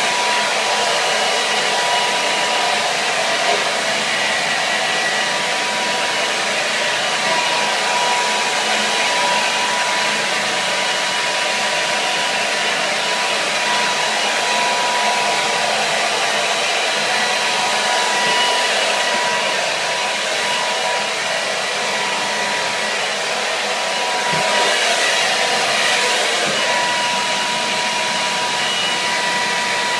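Hair dryer running steadily: an even rush of blown air with a thin, steady motor whine on top.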